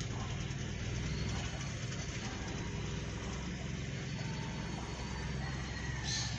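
Steady low rumbling background noise, with a brief high hiss about six seconds in.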